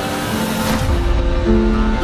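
Harp music, with held plucked notes, plays throughout. A brief rush of noise passes about half a second in, and a low rumble comes in underneath just under a second in.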